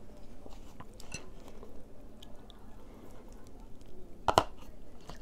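A person chewing and eating quietly, with small wet mouth clicks. One sharp knock stands out about four seconds in.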